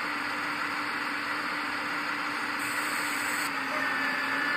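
1/14-scale RC hydraulic excavator running steadily, its pump working the arm, with a steady hum and a faint higher tone coming in near the end.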